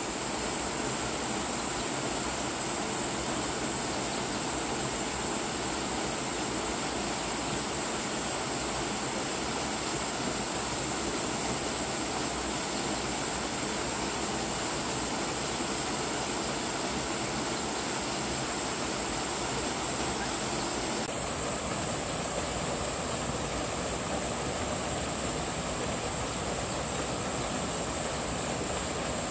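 Small waterfall pouring into a rock pool: a steady rush of falling, splashing water.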